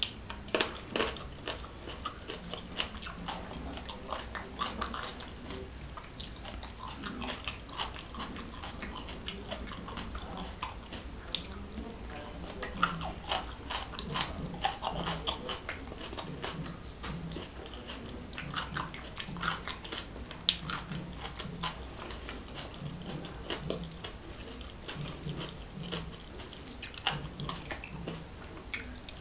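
Close-miked chewing and wet mouth sounds of a person eating rice and egg curry by hand, with frequent sharp lip smacks and clicks.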